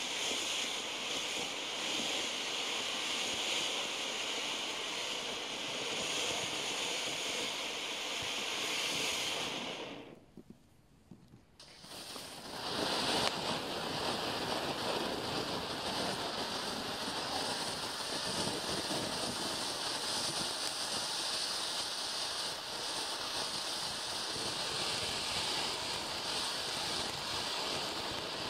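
Standard Fireworks Serenity low-noise firework fountains burning with a steady rushing hiss of sparks. About ten seconds in, the sound drops away for a couple of seconds as one fountain ends. The next fountain then takes over with the same hiss and a light crackle.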